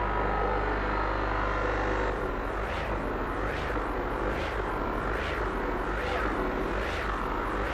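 Walton ceiling fan running: a steady hum, then from about two seconds in a rhythmic whoosh that repeats a little more than once a second.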